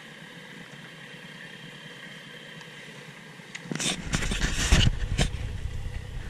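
Off-road vehicle's engine revving hard as it climbs through deep mud, wheels spinning and throwing mud, loud from about four seconds in; before that only a faint steady background.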